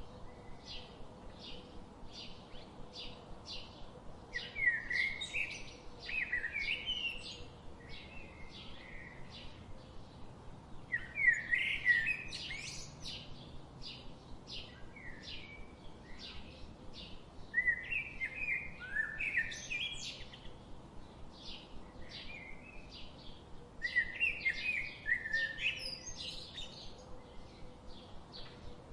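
Goslings peeping: high, slurred chirps in loud clusters every several seconds, over a steady run of short, even chirps.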